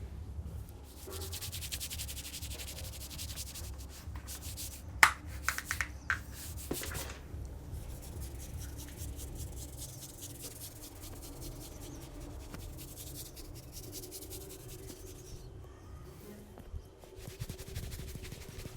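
Hands rubbing and working through hair and scalp in a head massage, a dense, rapid crackling rub. There is a sharp snap about five seconds in, then a few smaller clicks.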